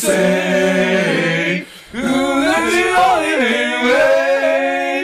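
A voice singing unaccompanied, holding long wavering notes, with a short break about one and a half seconds in.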